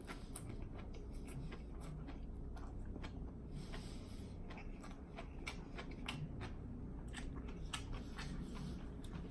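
Close-up chewing of a large mouthful of lettuce wrap, with wet open-mouth lip smacking: a run of irregular sharp smacks and clicks.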